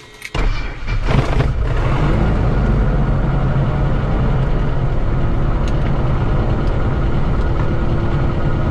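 Diamond DA40 DiamondStar's piston aircraft engine starting: it fires up suddenly about a third of a second in, surges briefly around a second in, then settles into a steady idle.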